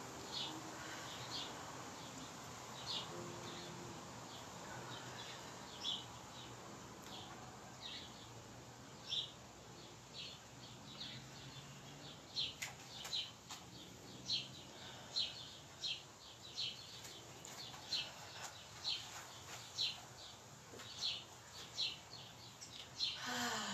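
A bird chirping over and over in short, high chirps, about one or two a second, coming more often in the second half, over a faint steady background.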